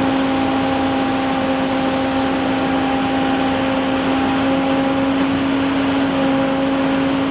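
A steady drone at one unchanging pitch, like a machine or motor running, over a constant background of noise such as traffic.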